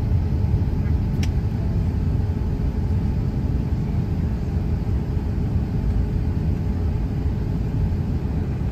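Steady low rumble inside an airliner cabin as the jet taxis, its engines at taxi power, heard through the cabin. A brief click about a second in.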